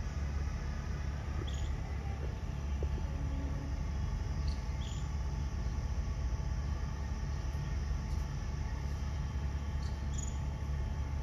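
Outdoor ambience: a steady low rumble with a few brief, high chirps every few seconds.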